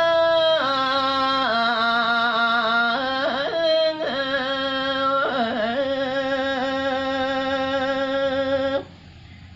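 A solo voice singing Balinese geguritan in the Sinom metre, unaccompanied. It holds long notes with wavering ornaments and a few pitch steps, and the phrase breaks off about nine seconds in.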